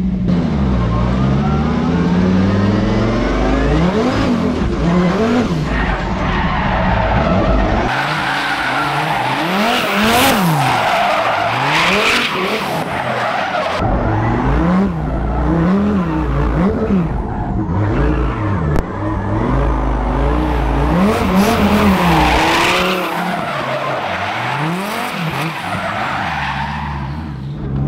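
Twin-turbo V10 engine of a Dodge Viper drift car heard from inside the cabin, revving up and down again and again as it drifts. Stretches of tire squeal come through, mostly in the middle of the run and near the end.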